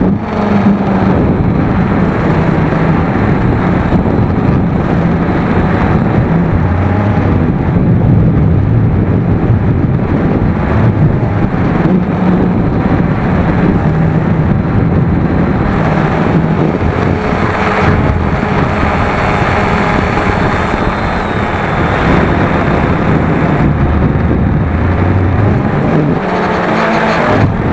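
Cheerson CX-20 quadcopter's brushless motors and propellers buzzing in flight, their pitch shifting up and down as the throttle changes, mixed with heavy wind noise.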